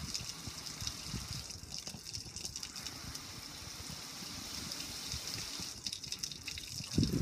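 Water pouring and splashing over a metal gas grill's lid and control panel, a steady hissing splash with scattered patter, and low thuds near the end.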